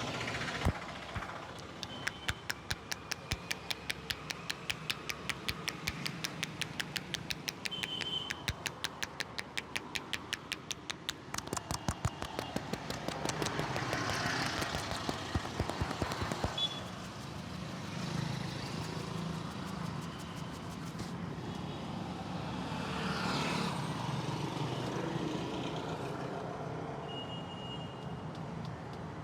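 Hands tapping in a quick, even rhythm on a customer during a street barber's massage, the slaps growing louder and sparser before stopping about two thirds of the way through. Street traffic noise runs underneath.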